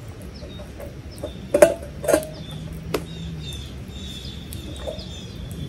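Small birds chirping repeatedly in quick high notes. Three sharp knocks, the loudest sounds, come about a second and a half, two and three seconds in.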